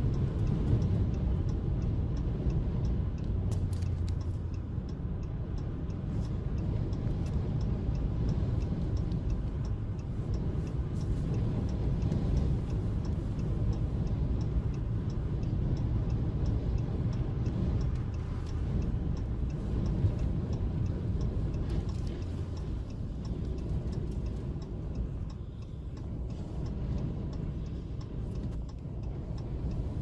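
Steady low rumble of wind and road noise heard from inside a vehicle driving on the highway in gusty high winds, with a faint, even ticking.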